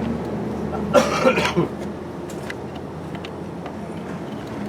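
A steady low machine hum runs throughout, and a person gives a short cough or throat-clear about a second in.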